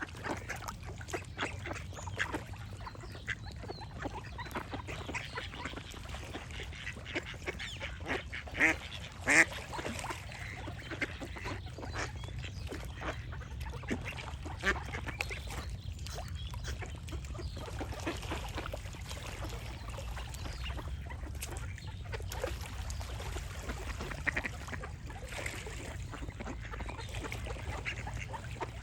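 Ducks quacking in a run of short calls, the two loudest about nine seconds in, over a steady low rumble.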